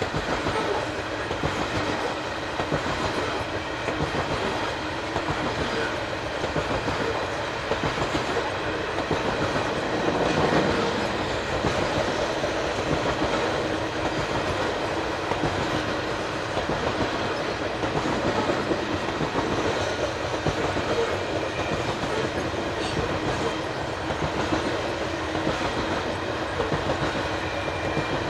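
Loaded coal hopper cars of a freight train rolling past: a steady rumble of steel wheels on rail with a quick, continuous run of wheel clicks.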